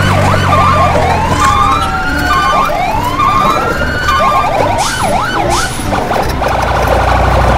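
Electronic siren sounds, several overlapping wails and fast up-and-down yelps, over background music with a steady low bass.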